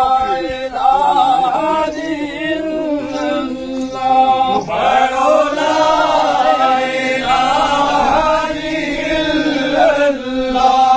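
A group of men chanting a devotional zikr together, their voices continuous and melodic, with a new phrase starting about halfway through.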